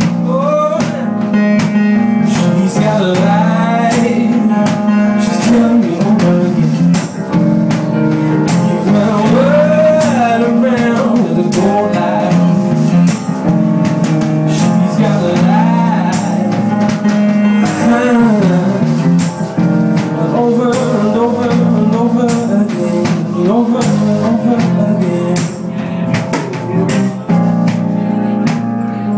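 A live band playing the song. A drum kit keeps a steady beat on the cymbals under a bass line, and a lead melody slides and bends between notes.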